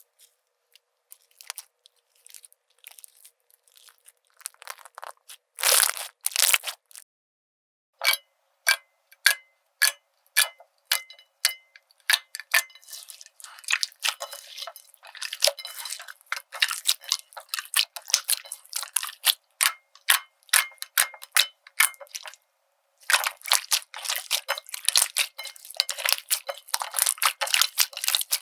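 Slime being squeezed and worked by hand, giving irregular sharp pops and crackles as air pockets burst, with a couple of brief pauses. The sound is thin and crisp, with no low end.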